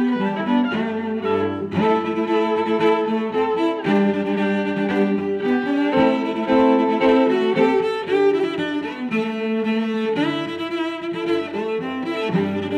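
Instrumental background music, a melody of held notes moving from one to the next.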